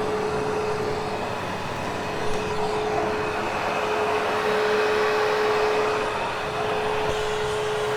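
Hoover Hushtone vacuum cleaner running steadily on thick carpet, a constant whine over a steady rushing of air, swelling and easing slightly as it is worked across the pile.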